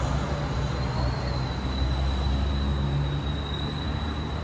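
Street traffic: a steady low engine rumble, with a thin high whine held above it.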